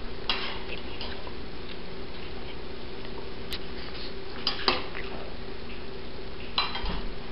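A spoon clinking against a small glass bowl a few separate times, two of the clinks close together about halfway, as sugar is spooned onto cupcake batter, over a steady low hum.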